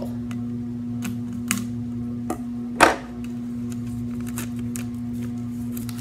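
Scissors cutting into the plastic label of a soda bottle and the label being peeled away, heard as a few scattered clicks and crinkles, the sharpest a little under three seconds in. A steady low hum runs underneath.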